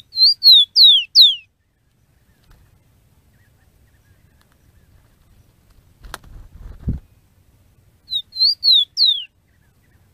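Rufous-collared sparrow (tico-tico) singing its short song twice: a few high whistled notes, the last ones slurring downward, once at the start and again about eight seconds in. Around six seconds in there is a click and a short low rumble.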